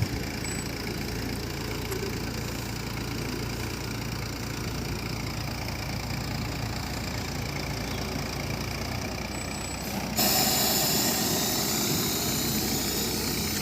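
Heavy earth-moving machine's engine running steadily at idle. About ten seconds in, a loud hiss cuts in suddenly over the engine.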